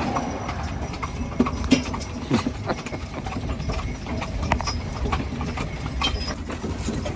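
Hooves of a team of two Haflinger horses clip-clopping as they pull a wagon: a string of uneven hoof strikes over a steady low rumble.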